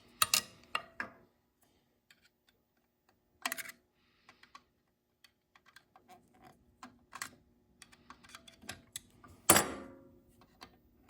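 Irregular small metallic clicks and taps of hand tools against the sewing machine's needle bar while the needle clamp screw is tightened, with a few louder knocks about a third of a second in, around three and a half seconds and around nine and a half seconds.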